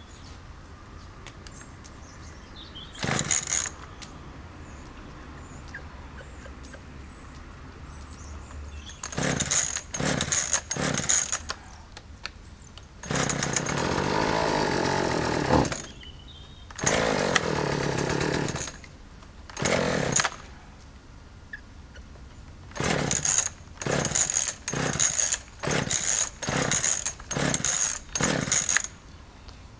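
Chainsaw engine sounding in repeated loud bursts with quieter gaps between: a few short ones, two longer runs of two to three seconds in the middle, then a quick series of about eight short bursts near the end.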